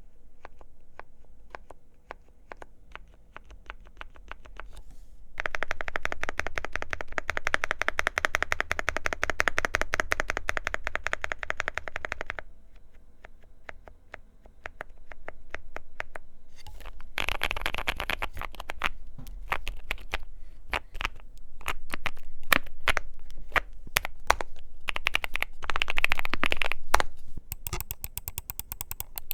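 Typing on a QK65 mechanical keyboard with a POM plate, lubed Gazzew Boba U4T tactile switches and PBT keycaps: a stream of key strikes. There is a fast, dense run from about five to twelve seconds in, with slower, lighter tapping between busier stretches later.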